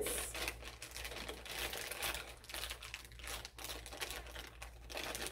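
Plastic bags crinkling with irregular crackles as a packaged bag of pecans is opened and handled and a zip-top plastic bag is opened.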